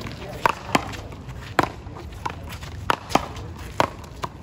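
Sharp smacks of a paddleball rally: the ball struck by paddles and rebounding off the concrete wall, about eight hits in four seconds at uneven spacing.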